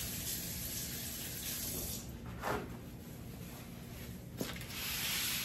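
Kitchen tap running into the sink as hands are washed, shut off about two seconds in. A brief knock follows, and near the end the soft rustle of a paper towel as the hands are dried.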